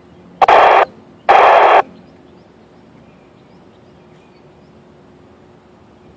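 Kenwood TM-261 2 m FM transceiver tuned to the 145.800 MHz ISS downlink, its speaker giving two loud bursts of static of about half a second each within the first two seconds as the squelch opens briefly between transmissions, then only a faint steady background.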